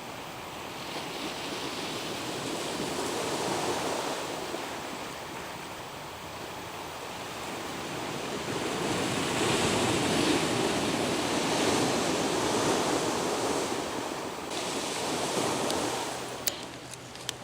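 Sea waves washing onto the shore, a rushing noise that swells and fades in slow surges. A few sharp clicks come near the end.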